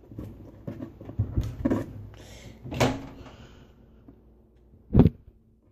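Scattered small knocks and rustles of things being handled, with one sharp, loud thump about five seconds in.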